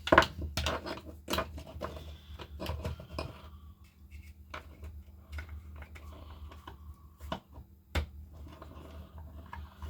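Irregular light clicks and knocks of small power-tool parts being handled and set down on a workbench. The clicks are dense for the first few seconds and then sparse, with a sharper knock about eight seconds in.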